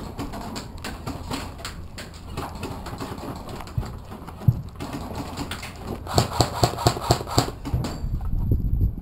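Footsteps and gear rustle of an airsoft player moving over a dirt barn floor. About six seconds in comes a quick run of sharp clicks, some six a second, and near the end a low rumble of handling noise.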